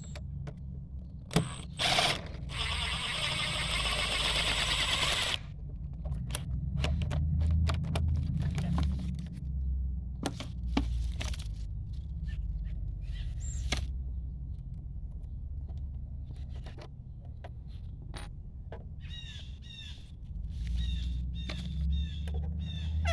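Scattered clicks and knocks of railing hardware being handled and taken apart, with a dense scraping-like noise lasting about three seconds early on. Near the end a bird chirps repeatedly, about two calls a second, over a low steady rumble.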